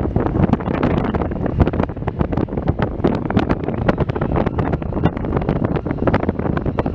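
Wind buffeting the microphone: a loud, uneven low rumble with frequent irregular pops and thumps.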